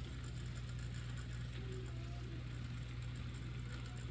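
HO scale Proto 2000 diesel model locomotive running on track: a steady electric motor hum with a faint whir of gears and wheels. It sounds smooth, without the cracking of worn axle gears.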